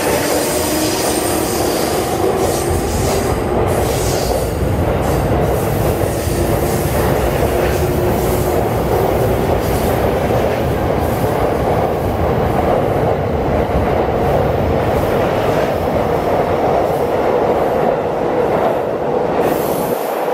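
JR Tokaido Line electric commuter train pulling out of the platform and passing close by, with a steady rumble and clatter of wheels on rail. Over the first several seconds its electric motors whine, rising slowly in pitch as the train gathers speed. The low rumble falls away near the end as the last car clears.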